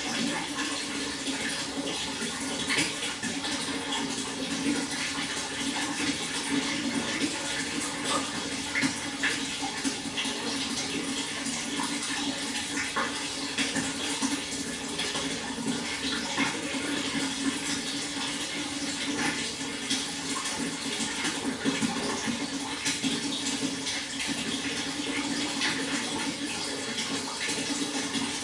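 Water flowing steadily: a constant rush with many small splashes and trickles throughout.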